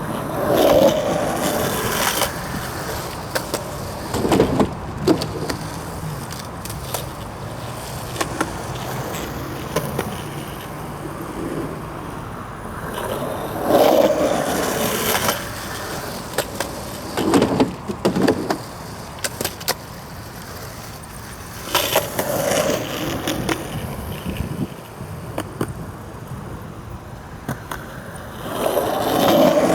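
Skateboard wheels rolling on concrete, the rolling noise swelling and fading every several seconds, with sharp clacks of the board in between.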